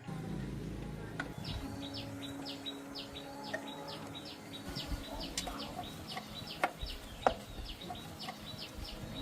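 A small bird or chick chirping over and over, about three short, high, falling chirps a second, with a few sharp clicks or taps near the end.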